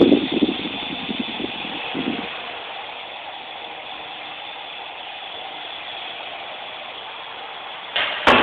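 Small electric RC toy helicopter's motor and rotor whining steadily, with a few thumps in the first couple of seconds and two sharp knocks near the end.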